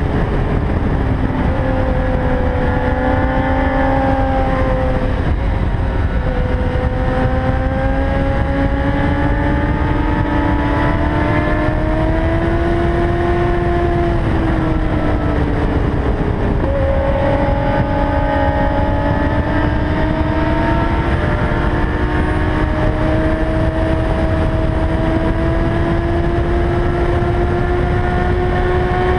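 Kawasaki ZX-10R inline-four engine running at highway speed, its pitch creeping slowly upward and dropping back twice, about five and sixteen seconds in, under a heavy steady wind rumble.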